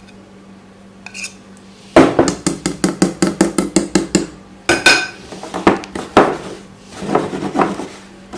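Kitchenware knocking and clanking: a fast run of knocks, about seven a second, lasting a couple of seconds, then several single clanks.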